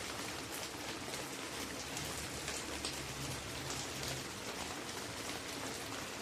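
Steady rain-like hiss with faint scattered ticks, at an even level throughout.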